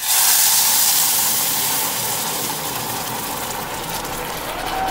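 Boiling water poured into a very hot saucepan of dry-toasted brown rice, hissing and boiling up violently as it hits the hot pan. The hiss starts suddenly, loudest at first, then eases slowly.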